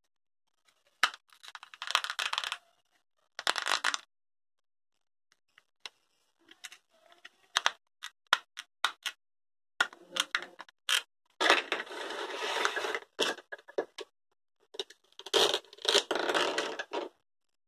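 Plastic toy fruit pieces handled on a table: sharp clicks of hard plastic knocking together, and several rasping tears, each about a second long, as velcro-joined halves are pulled apart. The last tear comes as a toy knife splits a toy pepper near the end.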